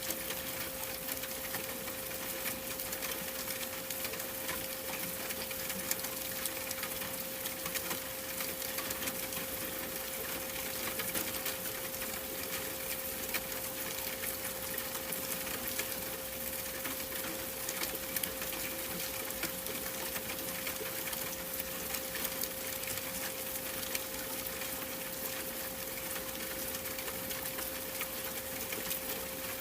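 A steady pure 528 Hz tone held without a break, over a continuous hiss of rain-like noise with fine crackle.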